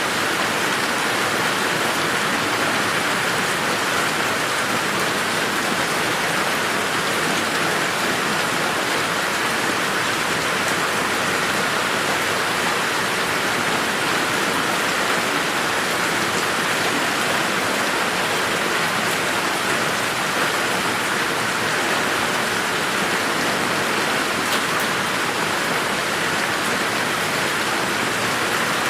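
Steady rain falling on garden foliage and ground, a constant even hiss with no thunder.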